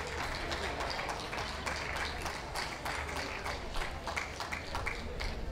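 Audience applauding, many hands clapping irregularly.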